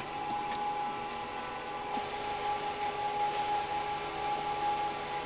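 A motor running steadily, a constant hum and whine that holds the same pitch throughout.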